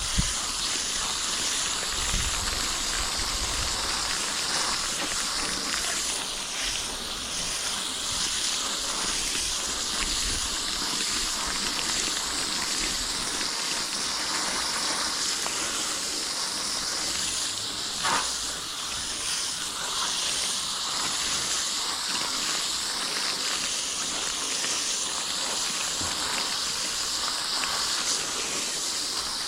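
Steady hiss of a water spray rinsing coil cleaner and dirt out of a heat pump's condenser coil.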